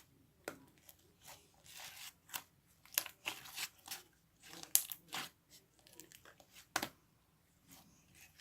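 Slime being squished and stretched by hand, giving irregular crackling and sharp popping clicks.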